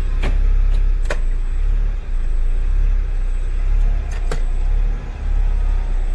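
Fiat Palio's engine running at low revs, heard from inside the cabin as the lowered car is eased out, with three sharp clicks or knocks, the loudest about four seconds in.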